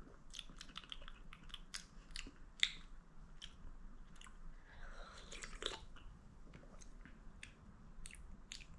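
Faint mouth sounds of someone tasting a sip of sparkling soda: irregular small wet clicks and lip smacks, with a louder one between two and three seconds in.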